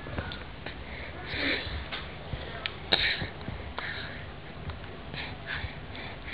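A baby sucking on a lemon slice, taking several short sniffing breaths through the nose, with a few faint clicks.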